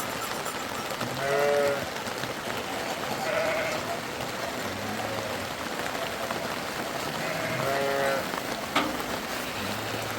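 Sheep bleating: two louder bleats about a second and a half in and near eight seconds, and a fainter one in between. The bleats come over a steady hiss of rain.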